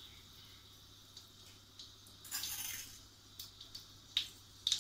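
Cooking oil heating in a wok on a gas stove, with scattered small crackles and a short sizzle about two and a half seconds in as the oil gets hot.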